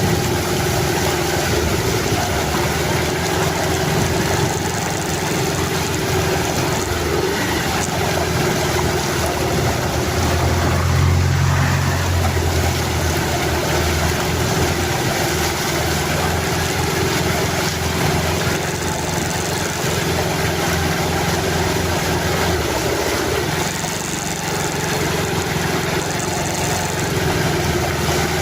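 A motor engine running steadily under a constant rushing hiss, its low hum growing louder for a couple of seconds about ten seconds in.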